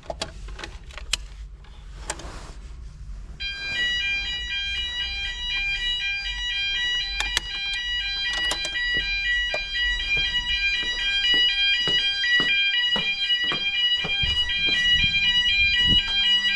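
A few clicks, then about three seconds in a fire alarm sounder starts: a rapidly pulsing, multi-tone electronic alarm that grows louder and keeps sounding. It has been set off for a weekly fire alarm test.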